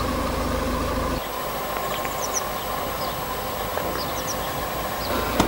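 Car engine humming low inside the cabin, then about a second in a cut to steady outdoor noise of a car coming along the road, with a few faint high chirps.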